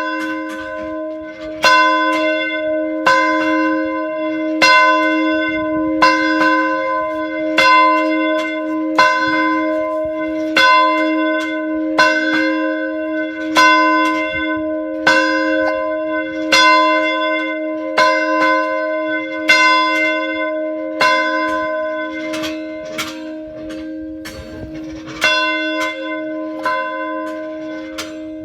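A single church bell tolling, struck about every second and a half, with its deep hum ringing on between strokes. It is rung as the evening call to prayer.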